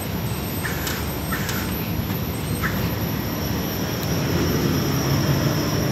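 Air handling unit's fan and motor running: a steady rushing hum with a thin high whine over it, heard through the open access door. A few faint clicks come in the first three seconds.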